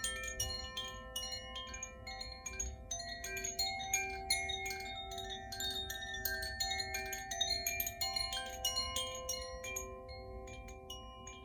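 Koshi chime, a handmade bamboo-tube wind chime with tuned metal rods, rung by hand: its clapper strikes the rods many times in quick irregular succession, leaving a wash of overlapping sustained tones. The strikes thin out and the ringing fades a little near the end.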